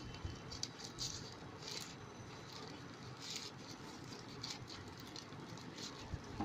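Packaging being handled during an unboxing: faint, scattered scratching and rustling, a few short scrapes every second or so.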